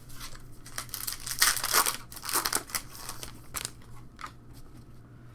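Foil trading-card pack wrappers crinkling and cards being handled, in irregular rustling bursts that are busiest in the first half and quieten near the end.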